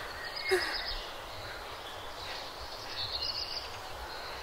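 Outdoor ambience: a steady hiss with short, fluttering bird chirps, once about half a second in and again around three seconds in.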